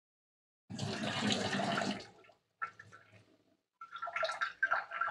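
A rush of running water lasting about a second and a half, followed by a few faint kitchen clinks and knocks.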